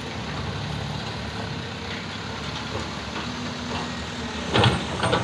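Hyundai -9 series hydraulic excavator's diesel engine running steadily as the machine swings its bucket back from the dump truck to the trench.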